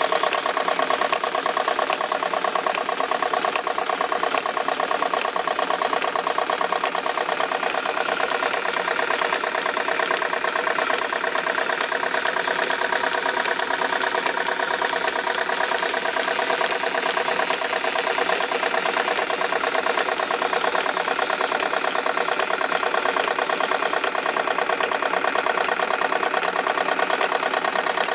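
Wilesco D22 electrically heated model steam engine running steadily, its exhaust chuffing in a fast, even beat, along with the running of the belt-driven line shafts and model workshop tools it powers.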